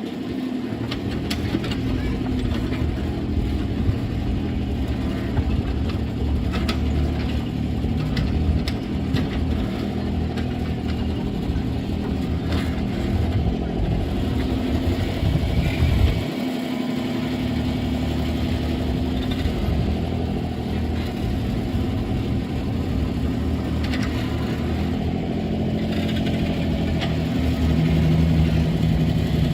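Diesel engine of heavy earthmoving machinery running steadily, with occasional clanks. The sound breaks off for a moment about 16 seconds in, then resumes.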